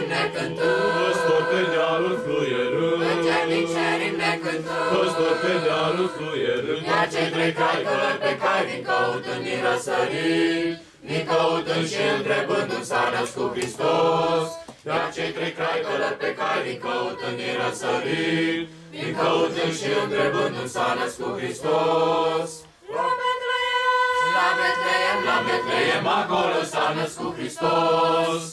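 A group of young voices, mostly girls, singing a Romanian Christmas carol (colind) unaccompanied, with brief breaks between phrases.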